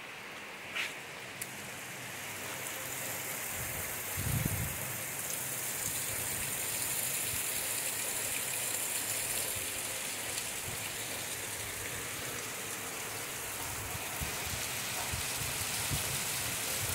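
Heavy rain falling, a steady hiss that grows louder over the first few seconds and then holds, with a brief low thump about four seconds in.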